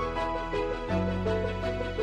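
Instrumental background music: a melody of short repeating notes over held bass notes, the bass note changing about a second in.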